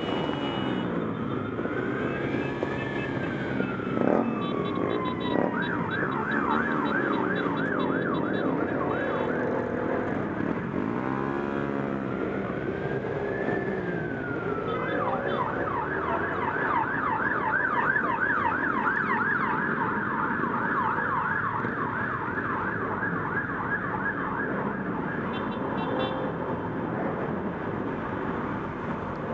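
Emergency vehicle siren sounding nearby, switching between a slow rising-and-falling wail and a rapid yelp, twice over. Underneath, motorcycle engines run in slow traffic.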